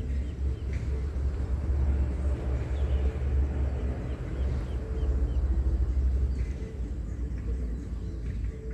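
Low, fluctuating rumble of wind buffeting the microphone outdoors, with a few faint, short bird chirps.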